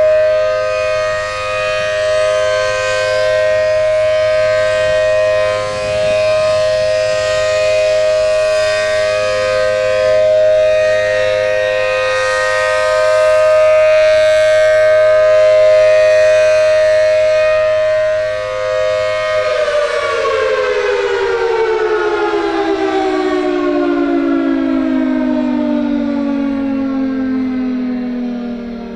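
ACA Allertor 125 first-generation 10/12-port siren sounding its steady two-tone alert chord, the loudness swelling and dipping every few seconds. About two-thirds of the way through, the pitch starts sliding down in a long, falling wind-down as the siren coasts to a stop at the end of its three-minute alert signal.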